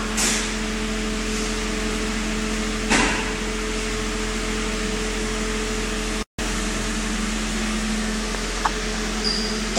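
Steady machine hum with a hiss over it, like a fan or air-conditioning unit running. There is a short rush of noise about three seconds in, and the sound cuts out completely for a moment a little after six seconds.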